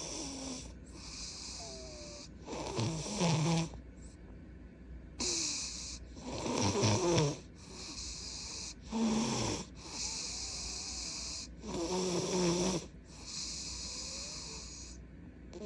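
A 2-year-old boy snoring in his sleep, with a rough, loud snore every three seconds or so and softer hissing breaths between. The snoring is very loud for a child, and the doctor found enlarged tonsils.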